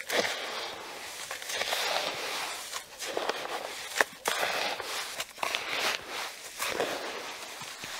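Wet coarse salt being stirred and scraped in a plastic basin with a wooden spatula and gloved hand: a gritty crunching that comes in strokes, with a sharp click about four seconds in.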